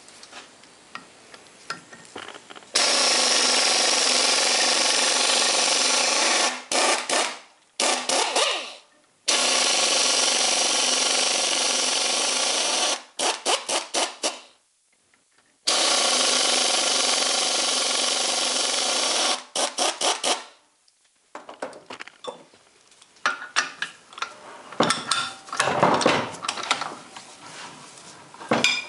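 Hose-fed butterfly air impact wrench running a quarter-inch tap into drilled holes in 1018 steel: three runs of steady air-tool noise about four seconds long, each followed by a few short quick bursts. Near the end, irregular clanks and clatter of the tool and metal parts being handled on the bench.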